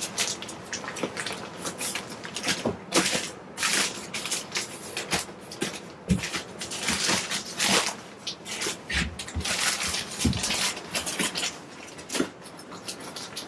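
Kraft-paper facing of fiberglass insulation batts crinkling and rustling in irregular strokes as the batts are pressed by hand into wall stud bays, with a few soft knocks.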